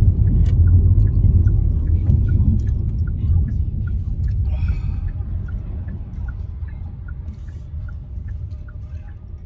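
Car road and engine rumble heard from inside the cabin, fading as the car slows down, with a light regular ticking about two or three times a second.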